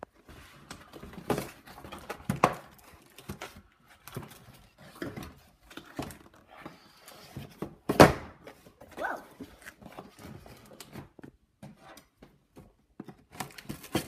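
Cardboard-and-plastic toy box being handled and pulled at to free a toy from its packaging: scattered knocks, clicks and rustles, with one loud thump about eight seconds in.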